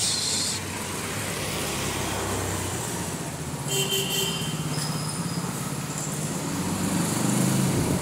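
A motor vehicle engine running with a steady low hum that grows louder near the end. A brief high tone comes about four seconds in.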